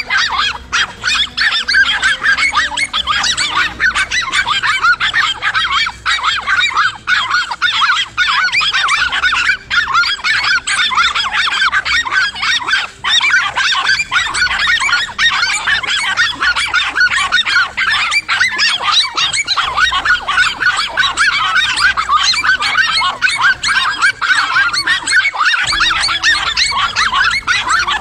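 A dense, unbroken chorus of many overlapping honking animal calls.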